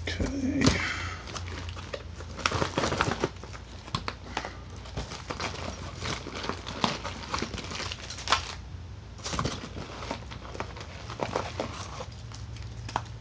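Heavy-duty plastic bag crinkling and rustling as it is handled and pulled open, with many irregular sharp crackles.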